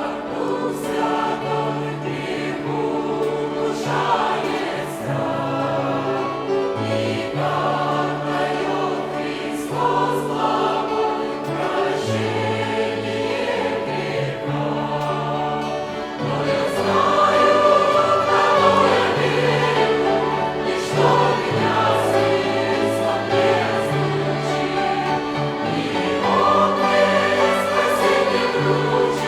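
Church choir singing a slow hymn in several parts, accompanied by a violin ensemble, with sustained chords changing every few seconds.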